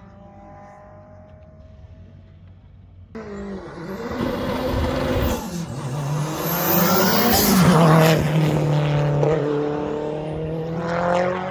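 Hillclimb race car at full throttle, coming in suddenly about three seconds in, passing loudest a little past halfway, then accelerating away up the hill with its engine note falling away and fading near the end.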